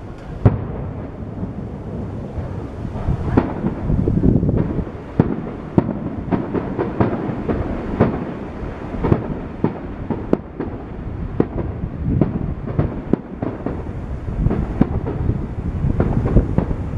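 Aerial fireworks shells bursting in quick, irregular succession: sharp bangs over a continuous low rumble of booms and echoes.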